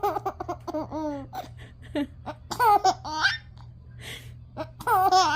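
A five-month-old baby laughing in three high-pitched runs of giggles, with short breathy pauses between them.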